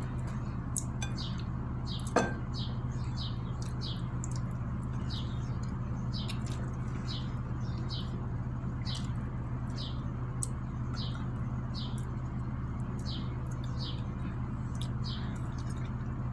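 A bird's short high chirps, each dipping slightly in pitch, repeating about one and a half times a second over a steady low hum. A single clink of utensil on dishware about two seconds in.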